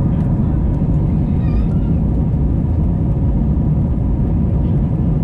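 Airbus A320 cabin noise during the climb after takeoff: the engines at climb power and the rushing airflow make a steady, loud low rumble inside the cabin, with a faint steady hum on top.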